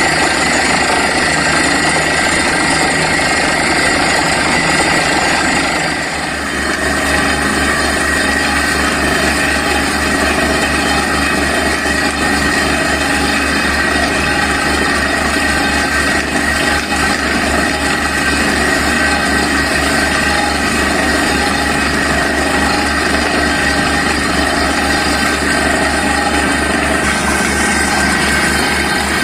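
Borewell drilling rig running steadily: heavy engines and air compressor with a dense low pulsing, which shifts in tone about six seconds in.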